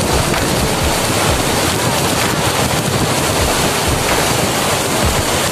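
Steady rushing of a tall waterfall at close range, with wind and spray buffeting the microphone in irregular low thumps.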